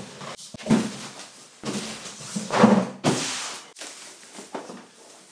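Unpacking noises: a few dull thumps from a large cardboard box and its polystyrene insert being handled, with plastic wrapping rustling, loudest about two to three seconds in.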